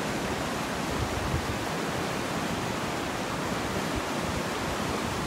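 River rapids rushing: a steady wash of whitewater noise.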